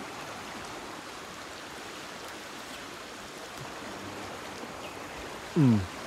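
Fast-flowing forest stream rushing steadily. Near the end a short voice sound slides down in pitch.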